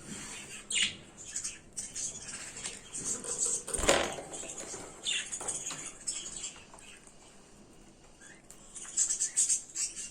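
Small birds chirping irregularly, with short rustling bursts; one louder burst comes about four seconds in and another cluster near the end.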